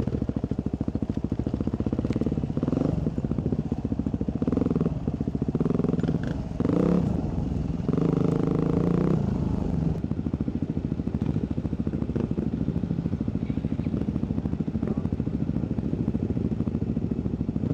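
Dirt bike engine heard from the rider's helmet: the throttle is blipped in short bursts several times in the first half while picking down a rough forest trail, then it settles into steady low-speed running.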